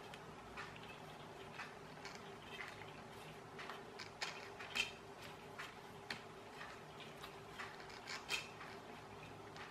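Faint, irregular small clicks of a thin metal driver working at the screw in the plastic lower rotor gear of a toy RC helicopter, with two sharper clicks near the middle and near the end, over a faint steady hum.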